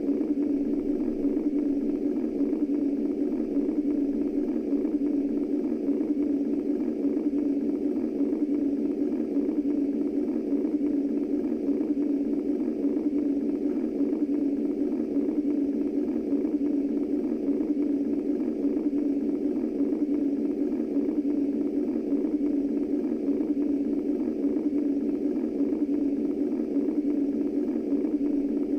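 Womb white noise: a steady, unchanging low hum of filtered noise, made to imitate the sound heard in the womb and soothe a baby to sleep.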